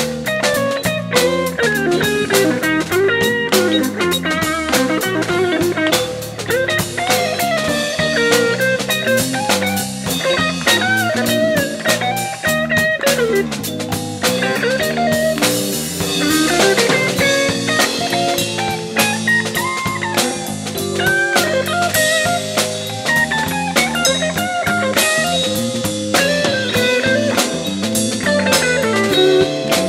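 Jazz-funk fusion band playing live: a busy drum beat under a winding lead melody.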